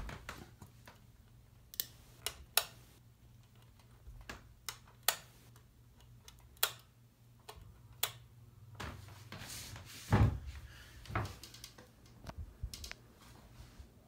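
Casablanca Four Seasons III ceiling fan motor running on high with a steady low hum, over which come irregular sharp clicks and knocks, the loudest about ten seconds in.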